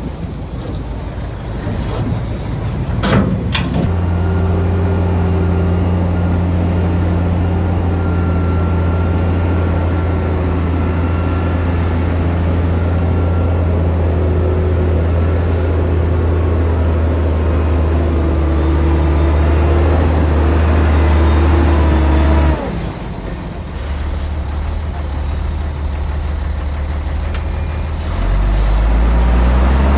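Heavy diesel earthmoving machinery at work: a sharp clank about three seconds in, then a deep, steady engine drone that cuts off suddenly about three quarters of the way through. Under it another engine keeps running and revs up near the end.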